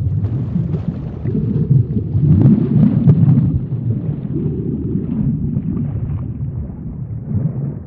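Underwater ambience: a low, rumbling wash of water that swells and eases, with a scatter of short bubbling pops.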